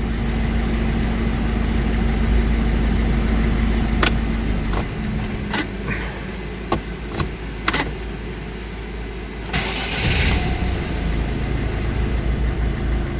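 Volvo car engine running at idle with a steady low rumble. Several sharp clicks come midway, and a short burst of hiss comes about ten seconds in.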